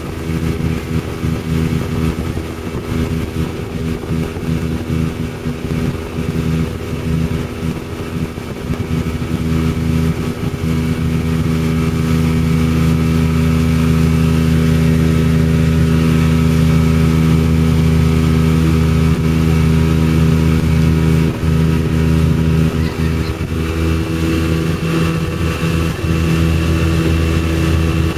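Boat's outboard motor running steadily at speed while towing a tube. It gets louder about twelve seconds in and stays up.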